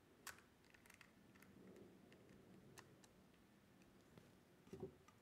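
Faint, scattered light ticks of a screwdriver tightening the grip screw on a revolver's laser grip panels, heard over near silence.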